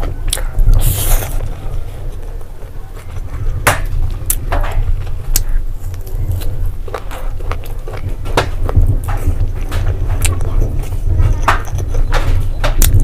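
Close-miked eating sounds of rice and fried pork eaten by hand: wet chewing clicks and lip smacks, one or two a second, over a steady low hum.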